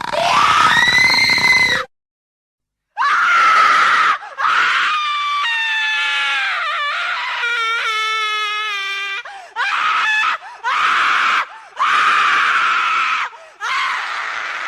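Human screams of terror in a row: one long scream, a full break of about a second, then a run of long screams separated by short pauses, one of them quavering and trembling in pitch midway.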